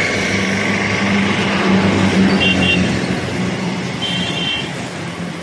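A motor vehicle driving past on the road: its engine hum and road noise swell to a peak about two seconds in, then fade away. Short high chirps sound twice in the second half.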